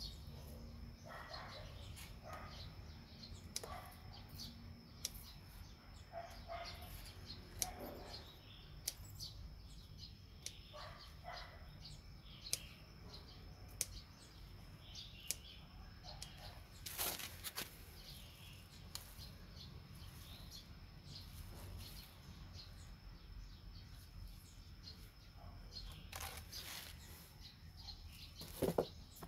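Kitchen scissors snipping through green onion stalks, scattered faint sharp snips every second or two, with birds chirping faintly in the background.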